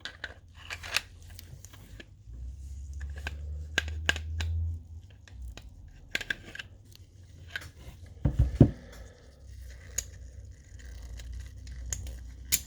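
Scattered metal clicks and scraping as the slide and barrel of a Beretta 81 Cheetah pistol are handled and worked back onto the frame, with a louder knock about eight seconds in.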